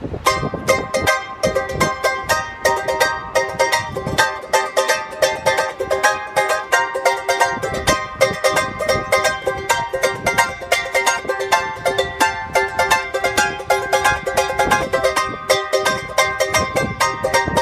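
Tahitian ukulele with nylon fishing-line strings strummed quickly and steadily, several strokes a second, chords ringing with a bright, banjo-like twang.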